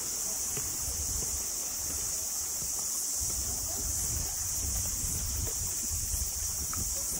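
Wind rumbling on the phone's microphone over a steady high hiss of outdoor ambience, with a few faint ticks.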